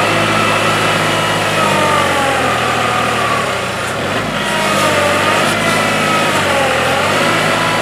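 Kubota L3301 HST tractor's three-cylinder diesel engine running under load while the front loader pushes a heavy log through mud. Its pitch dips and rises several times.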